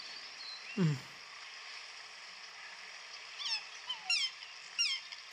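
Birds calling in short, high, falling chirps, several of them over a couple of seconds in the second half, over a steady outdoor hiss. About a second in there is one short, low call that falls in pitch, like a brief voice sound.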